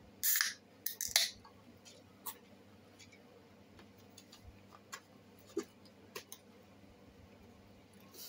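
A brief loud rustle near the start, then two sharp clicks and scattered small ticks and taps, from handling fries, a drink can and a styrofoam cup at the table.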